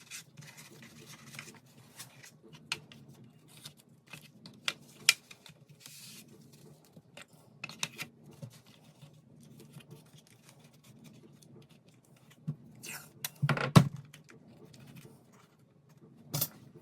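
Light handling noises of model building: scattered small clicks, taps and rubbing as excess glue is wiped off the wooden hull parts, over a faint steady low hum. A louder clatter of handling comes about three-quarters of the way through.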